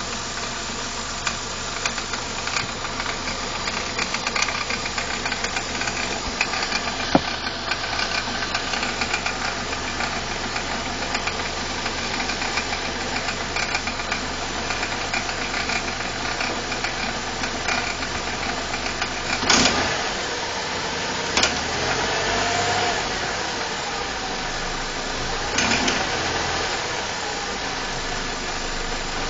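BMW E46 318i's N42B20 2.0-litre four-cylinder engine running steadily with a rattle from the intake area, a noise of unknown cause that the owner cannot place. A few sharp knocks stand out about two-thirds of the way through.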